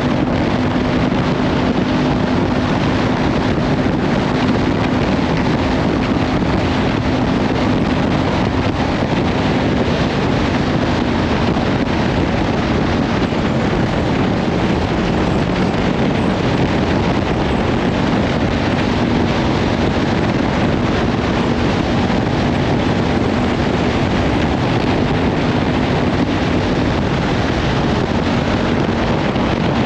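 Kawasaki Ninja 500 parallel-twin engine, fitted with a Leovince slip-on exhaust, running at a steady cruising speed. It is heard as a steady hum under heavy wind buffeting on the microphone.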